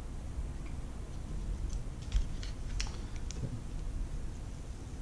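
Light plastic clicks and taps from handling a Logitech C922 webcam and its hinged clip mount, about half a dozen scattered through the middle, over a low rumble of hands moving the camera.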